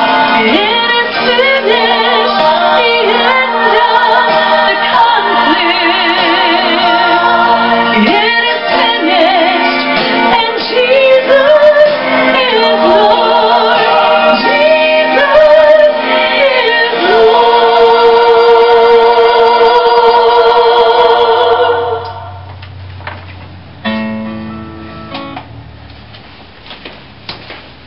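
A woman singing a gospel song solo with accompaniment, ending on a long held note with vibrato. The song stops about 22 seconds in, leaving a faint hum and a few small knocks.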